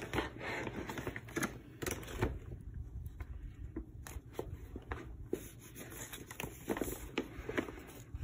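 Clear plastic envelope pouch crinkling and paper scraps rustling as a hand rummages through them, with many small irregular crackles and clicks.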